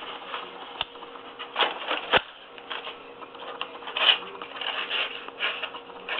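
Hand work on a carpet patch: a string of short, irregular rustling and scraping bursts with two sharp clicks, the first under a second in and the second just past two seconds, typical of tape and carpet backing being handled.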